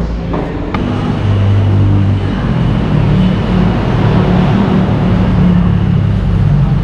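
A motor vehicle engine running steadily, with street traffic noise around it.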